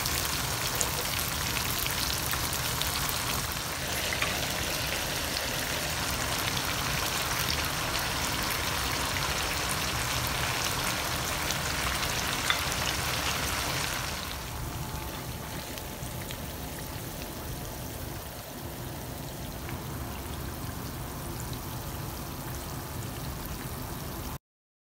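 Green chicken karahi frying in oil in a karahi, a steady sizzle with small crackling pops. It turns quieter about 14 seconds in and cuts off suddenly just before the end.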